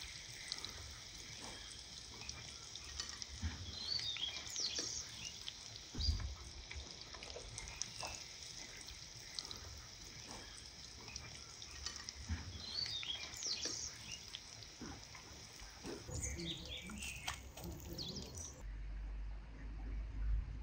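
Breaded vegetable-and-meat balls deep-frying in a pot of oil: a steady sizzling hiss, with birds chirping a few times over it and a single low thump about six seconds in. Near the end the sizzling cuts off, leaving a low hum.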